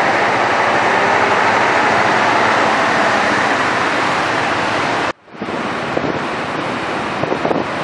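Muddy, debris-laden flood water rushing down a rocky mountain stream bed in a steady, loud rush. It breaks off briefly about five seconds in, then goes on slightly quieter with a few short knocks.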